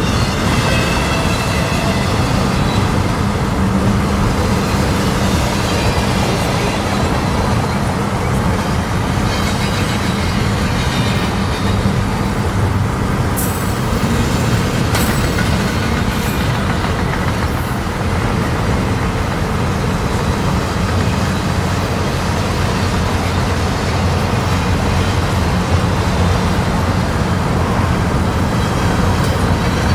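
Steady, loud rumble and rolling noise of moving heavy vehicles, without a break.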